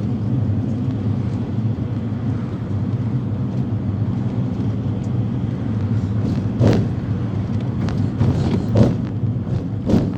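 Ford Transit-based minibus heard from inside the cabin while under way: a steady engine and road rumble. About two-thirds of the way through and near the end come a few short knocks or rattles.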